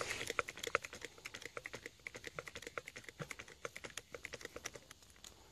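Faint, rapid run of light clicks, several a second, from a bolt pull-test rig as it is loaded and takes up slack on a glue-in climbing bolt; the clicks fade toward the end.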